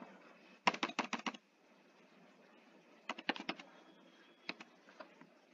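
Laptop keyboard keys clicking while a phone number is typed in: a quick run of keystrokes about a second in, another run after about three seconds, then a few single taps near the end.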